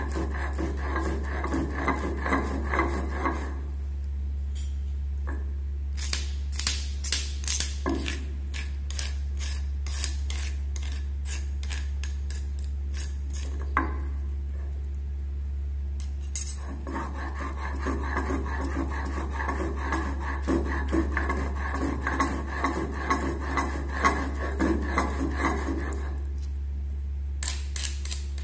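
Stone roller grinding raw mango, mint and green chillies on a flat stone slab (shil-nora), a gritty back-and-forth rubbing scrape. It stops after a few seconds, gives way to a long run of quick sharp stone-on-stone clicks and taps, then resumes grinding before a few more clicks near the end. A steady low hum runs underneath.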